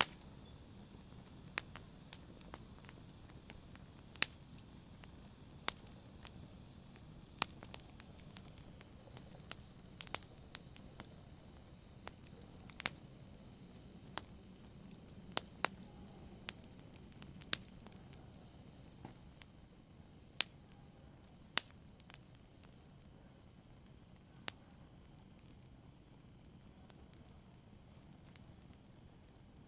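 Wood logs burning in a fireplace, crackling with sharp, irregular pops over a low, steady rush of flame. The pops come about once a second and thin out near the end.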